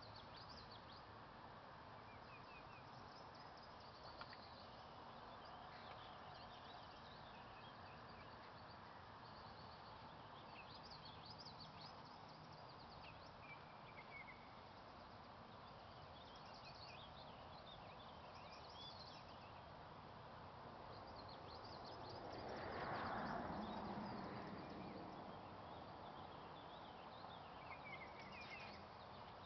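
Faint outdoor ambience: scattered short chirps and trills from several songbirds over a steady low hiss. About three quarters of the way through, a soft rushing noise swells up for a couple of seconds and fades.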